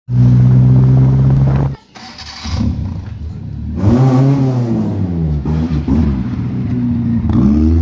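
1972 Toyota Corolla's engine running and revving in a string of short cut-together clips. It runs steadily at first, then rises and falls in pitch several times, and the sound changes abruptly at each cut.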